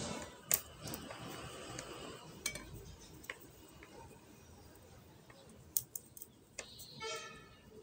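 Metal knitting needles clicking and scraping as strips of saree cloth are knitted, with the fabric rustling. Scattered single sharp ticks rather than a steady rhythm.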